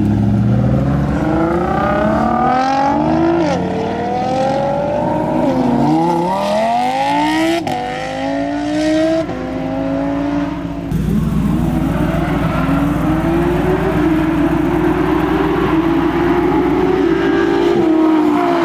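High-performance cars accelerating hard under full throttle, the engine pitch climbing and dropping sharply at each quick upshift, several times in the first half. About eleven seconds in, the sound changes abruptly to an engine pulling steadily higher in one long gear.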